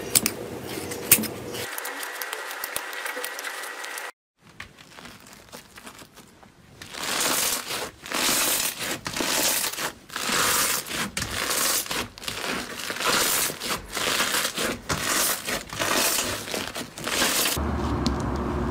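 Pink slime packed with foam beads (floam) crackling and crunching as hands press and knead it, swelling with each press. Before it, scissors snip twice through a foam squishy toy near the start.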